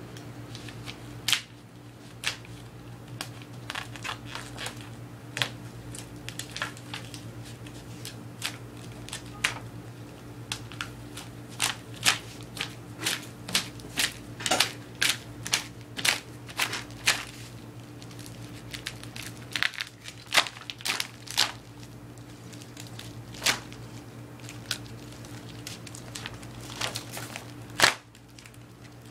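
A large printed sticker sheet being handled and peeled: irregular crinkling and crackling of plastic film and paper backing, over a steady low hum.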